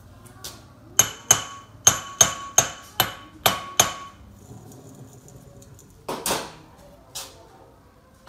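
A hammer striking metal: a quick run of about eight ringing blows, then two or three softer knocks a couple of seconds later.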